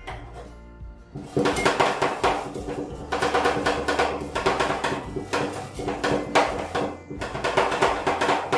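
Two metal spatulas chopping and scraping on a frozen steel ice-cream-roll plate, mixing fruit into the cream base. They make fast metallic clacking in long runs, which starts about a second and a half in after a brief lull and pauses briefly twice.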